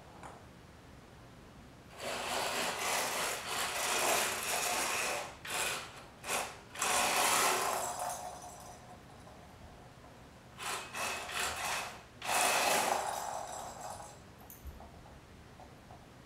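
Small hobby robot car's electric gear motors whirring and its wheels rolling on a hardwood floor, in stop-start bursts of one to three seconds as it is driven back and forth with joystick speed control.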